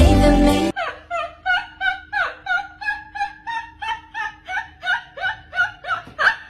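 Music cuts off abruptly under a second in. Then comes a long run of high-pitched laughter, short hooting squeals at about three a second, that stops just before the end.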